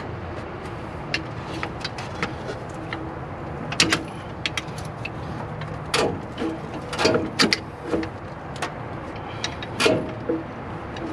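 Scattered metal clicks and knocks of tools and engine parts being handled while a cylinder head is worked off a V8 block. The sharper clanks come about four, six, seven and ten seconds in, over a steady low background hum.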